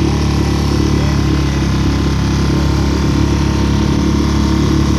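Small boat outboard motor running at a steady speed while under way, its hum unbroken throughout.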